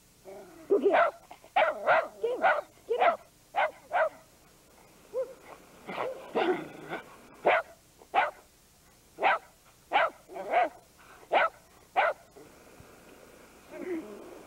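Shetland sheepdog barking over and over, short sharp single barks coming every half second to a second, stopping near the end.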